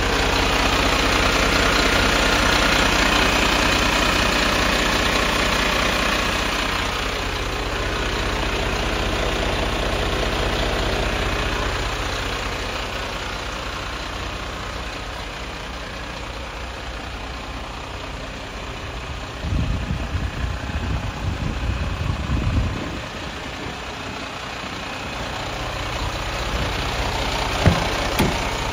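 Mercedes-Benz Atego 1530's 7.7-litre six-cylinder diesel idling steadily, louder at first and easing off somewhat. About twenty seconds in come a few seconds of irregular low thumps, and there is a single sharp click near the end.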